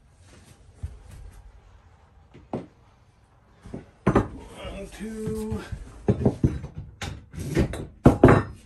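Irregular knocks and thumps of a person kneeling and shifting about on an OSB plywood floor, more frequent in the second half, with a brief held tone about halfway through.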